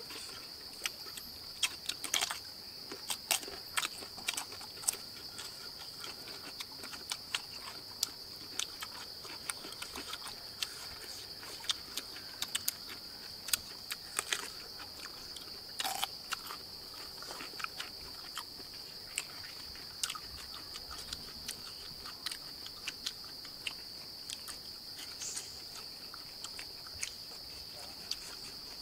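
Steady high-pitched drone of forest insects, one unbroken tone, with many short sharp clicks and taps scattered through it.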